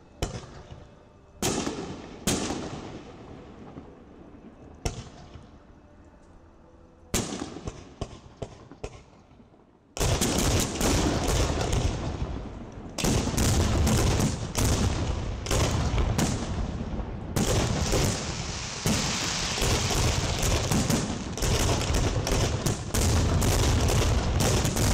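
Fireworks display: a few separate shell bursts and bangs over the first ten seconds, then a sudden switch to a dense, continuous barrage of rapid-fire launches and bursts that stays loud until near the end.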